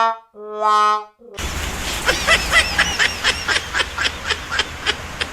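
A multi-tone bus horn of the 'telolet' kind blows long brassy notes, the last ending about a second in. It gives way to a steady noisy background with a fast run of short high chirps and clicks.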